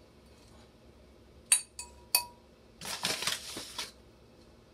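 Ceramic bowls clinking together twice, about half a second apart, each with a short ring, then about a second of scraping as a bowl is moved and lifted off the stone countertop.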